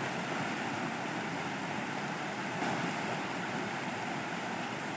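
Fast river current rushing steadily over rocks and shallow rapids.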